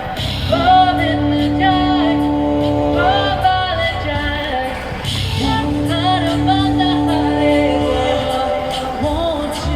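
Live busking song: a woman singing over held instrumental notes.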